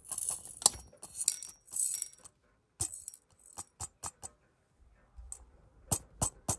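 Small pieces of gold sliding off a metal pan and clinking into a metal weighing cup on a pocket scale: a scraping rattle over the first two seconds, then a run of separate sharp ticks as the last pieces are tapped off.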